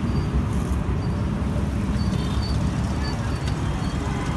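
Steady low rumble of road traffic, with a few faint short high chirps about halfway through.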